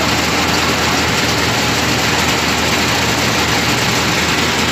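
Diesel engine of a mobile crane running loud and steady under load while the crane holds a heavy suspended steel structure.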